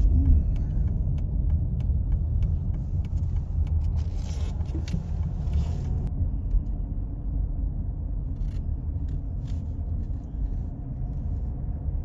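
Road noise inside a moving car: a steady low rumble of engine and tyres, with a few scattered clicks.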